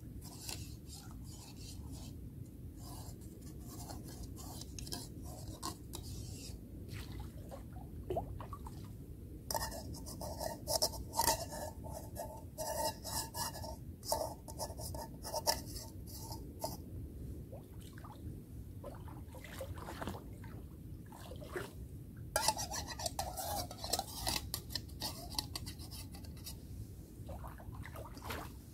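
A camping mug being scrubbed clean by hand, with rubbing, scraping and light clinking in two spells: one from about ten seconds in and another near the end.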